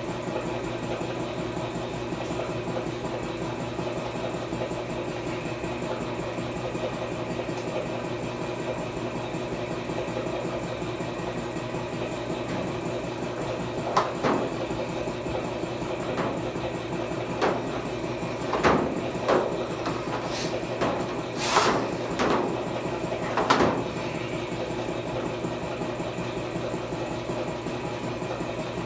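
A motor running steadily with an even hum, with several sharp knocks in the middle of the stretch.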